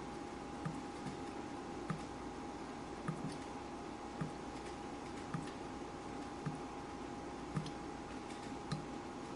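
Water dripping steadily, one drop falling about once a second, over a faint steady hum.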